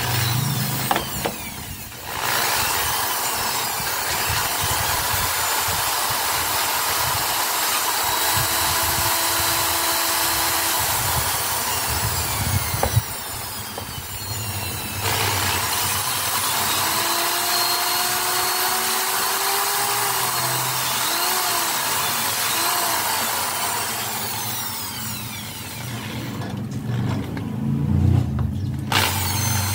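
Handheld electric power tool running at full speed in two long continuous runs of about ten seconds each, with a short stop midway and a restart near the end.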